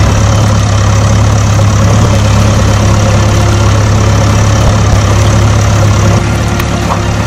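An engine idling steadily: a constant low hum over an even hiss, dipping slightly near the end.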